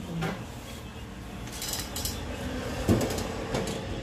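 Light handling noise at a desktop computer: a few soft knocks and clicks, the firmest about three seconds in, with a brief rustle in the middle.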